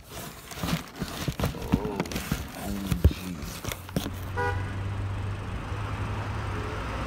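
Sound effects of an animated video intro: a rapid run of clicks, crackles and short swooping tones. Then, a little past halfway, a brief ringing tone gives way to a steady rushing noise over a low hum.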